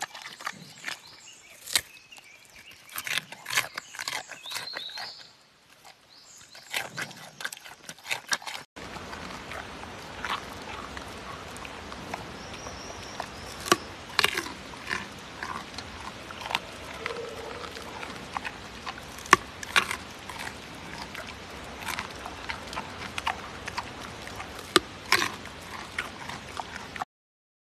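Giant panda biting and chewing a raw carrot: crisp, sharp crunches at irregular intervals with chewing between. About nine seconds in, the sound cuts to another recording with a steady hiss behind the crunching.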